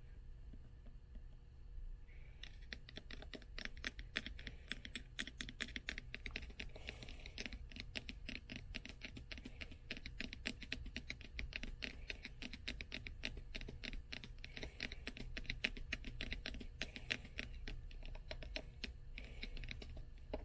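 Fingernails tapping rapidly on the hard covers of old books, a fast, even run of many small clicks a second starting about two seconds in.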